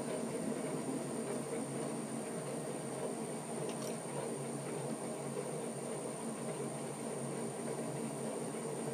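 Atlas metal lathe running with a steady hum while the tool faces off the end of a short workpiece held in a hand-wheel 5C collet chuck.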